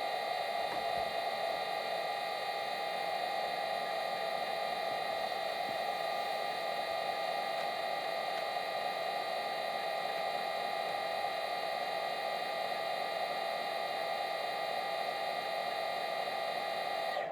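Sound decoders in model Class 66 diesel locomotives playing a recorded diesel engine idle through small onboard speakers, a steady hum with a whining overtone.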